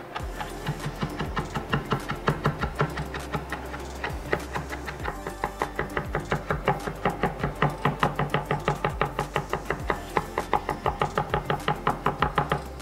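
Chef's knife mincing rosemary and garlic on a bamboo cutting board: quick, even chops of the blade on the wood, several a second.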